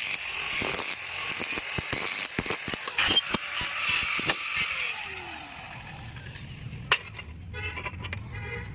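Rapid mechanical clicking and rattling over a hiss for about five seconds, then quieter, with one sharp click near seven seconds.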